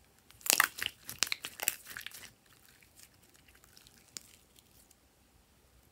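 Glossy slime being pressed and stretched by hand, giving a quick run of crackles and clicks for about two seconds, then a few fainter ones.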